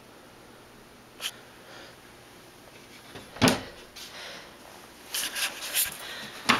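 A few scattered clicks and knocks over a low background, the loudest about three and a half seconds in, with a quick cluster of them near the end.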